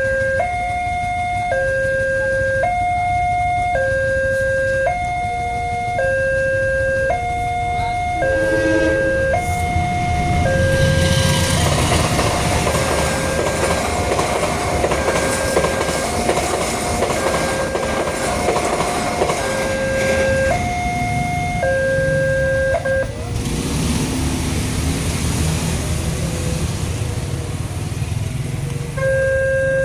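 Railway level-crossing warning siren sounding a two-tone alternating warning, about a second per tone. A train passes over the crossing meanwhile: its wheels and carriages rush loudly from about ten seconds in, stop sharply about two-thirds through, and leave a lower rumble that fades near the end.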